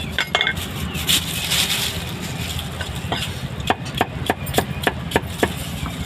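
Cleaver chopping roast meat on a wooden chopping block: two quick chops at the start, then a fast run of about seven chops, roughly three a second, in the second half.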